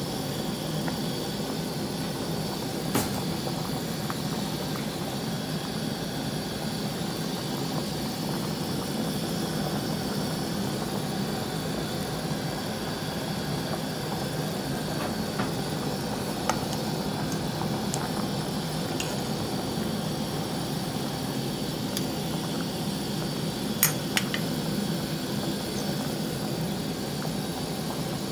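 Large metal pot of sinigang broth at a rolling boil: a steady bubbling rumble, with a few sharp metallic clicks, two of them close together near the end.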